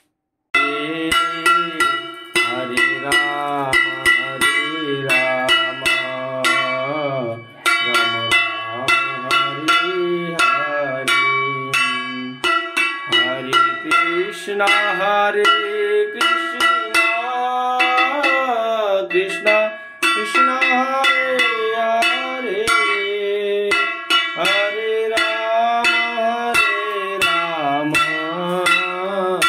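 A bell rung rapidly and continuously over devotional music that carries a singing voice.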